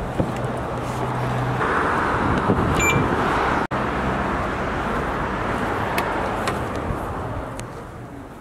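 Car engine idling with a steady low hum, then a wider steady rush of vehicle and traffic noise. A short electronic beep sounds about three seconds in, and the sound cuts off abruptly for an instant before steady outdoor noise carries on.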